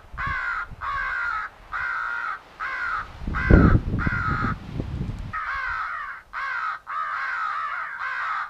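Electronic crow caller playing a recording of crows cawing: a steady run of short caws, about two a second, used to draw crows in. About three seconds in, a low rumble hits the microphone for around two seconds.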